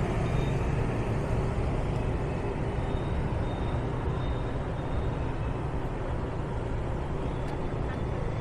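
Steady road traffic noise, a continuous low rumble of vehicle engines.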